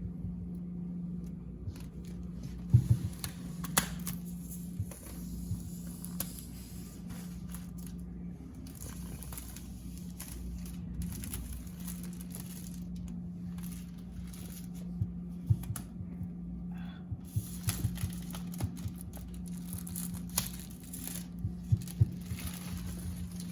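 Packaging of a new MacBook Pro being handled and opened: tearing and crinkling of paper and plastic wrap, with scattered taps and clicks of box and laptop, over a steady low hum.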